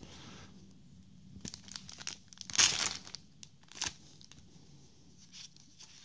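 Foil trading card booster pack being torn open and crinkled in the hands, with the loudest rasping tear about two and a half seconds in and a sharp crackle of the wrapper near four seconds.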